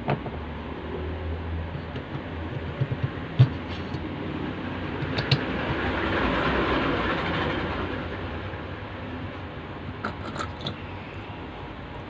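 A vehicle passing, its noise swelling over a few seconds and fading again, with a few sharp clicks and knocks of small parts being handled.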